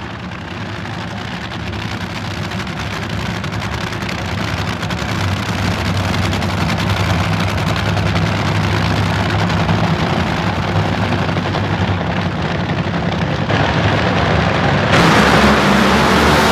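Nitromethane-burning Funny Car engines (supercharged V8s) run with a low, uneven rumble and grow steadily louder as the cars back up and stage. Near the end they go to full throttle for the launch, a much louder, crackling blast.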